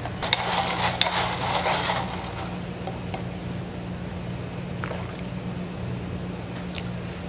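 Ice rattling and crackling in a lidded plastic cup of iced strawberry milk and watermelon ade as the drink is mixed, for about two seconds, then a steady low hum.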